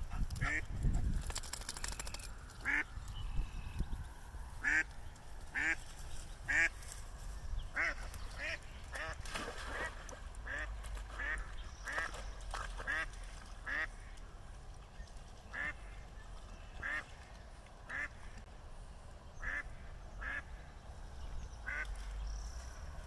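A duck quacking over and over in short calls, roughly one every half second to second. A low rumble on the microphone sits under the first second or two.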